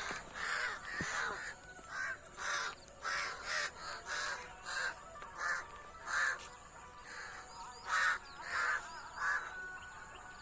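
Crows cawing in a long run of harsh calls, about one every half second to second, thinning out near the end.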